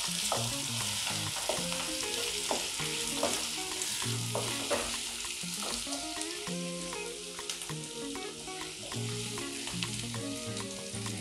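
Diced potatoes, onion and green chillies sizzling in hot oil in a non-stick kadai, with a steady hiss, while a wooden spatula stirs them, scraping and tapping against the pan now and then.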